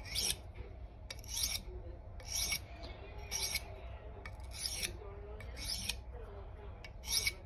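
Steel knife blade scraped across the smooth (fine) side of a dry two-sided sharpening stone, seven short rasping strokes about a second apart: the finishing stage of sharpening on the fine grit.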